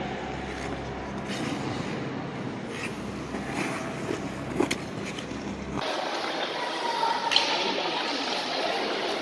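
Ice rink noise: skate blades scraping the ice in an echoing arena over a low hum, with a few sharp clicks. About six seconds in it switches abruptly to a brighter, hissier rink noise of a youth ice hockey game on the ice.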